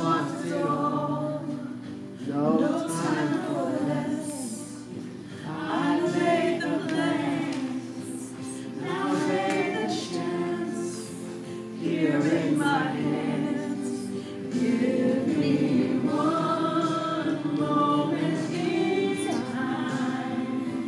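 Music: a song with several voices singing in phrases over accompaniment.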